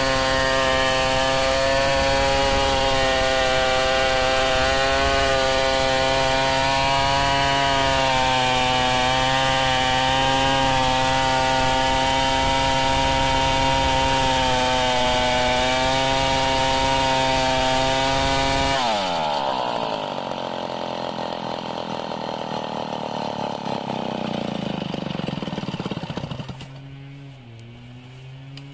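Stihl 070 chainsaw, a big two-stroke, running steadily at full throttle while ripping lengthwise along a log to mill a plank. About two-thirds of the way through the throttle is released and the engine note falls to a lower, uneven idle, then it drops quieter again near the end.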